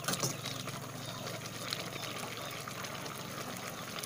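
Thick taro-leaf curry bubbling in an aluminium pot while a spatula stirs it: wet sloshing and faint scraping, over a low steady hum.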